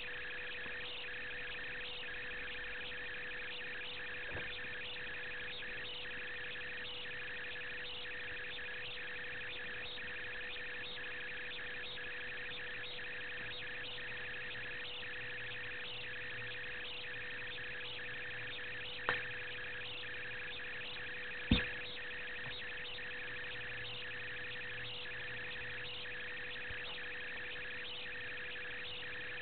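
Reeling mechanical noise of a low-quality camera's own mechanism: a steady whir with a constant hum and a high chirp repeating a few times a second. Two sharp clicks sound about two-thirds of the way through, the second louder.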